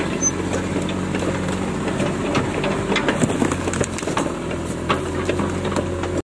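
Engine of a tracked excavator running steadily as the machine travels, with irregular clanks from its steel tracks. The sound cuts off suddenly near the end.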